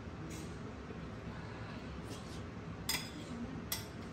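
A metal spoon clinking against a dinner plate four times, the loudest clink about three seconds in.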